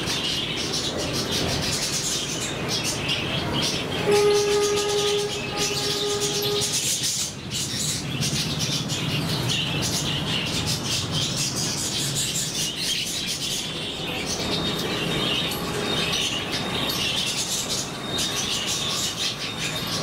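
A flock of budgerigars chattering and warbling without a break. About four seconds in, a steady horn-like tone holds for nearly three seconds.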